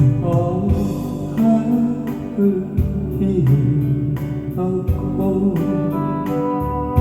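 Music: the instrumental introduction of a slow song, with guitar and keyboard over a steady beat and a melody line.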